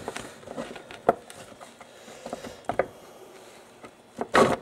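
Aluminium halves of a Dana 4360 transaxle case being pried apart by hand, their joint sealed with old silicone: a few scattered light clicks and knocks, then a louder scraping burst near the end as the halves come apart.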